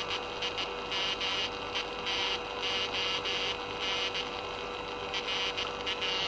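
Morse code from SAQ, the Grimeton Alexanderson alternator transmitter on 17.2 kHz VLF, as received through a level meter and demodulator: a hissy keyed signal comes on and off in short and long elements over a steady hum.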